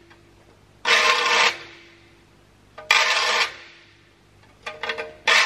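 Metal saw file rasping across the teeth of a crosscut handsaw clamped in a vise, sharpening it: slow single strokes about two seconds apart, each a harsh scrape followed by a brief ringing tone from the saw plate. A few short scrapes come just before the third stroke near the end.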